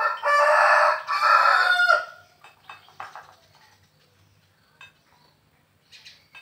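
Rooster crowing once, a loud cock-a-doodle-doo lasting about two seconds, followed by a few faint light taps.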